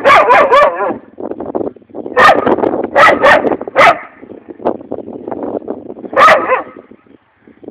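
Pet dog barking in short, loud bursts: a quick run of barks at the start, several more between about two and four seconds in, and one more about six seconds in, with quieter yips and whimpers between them.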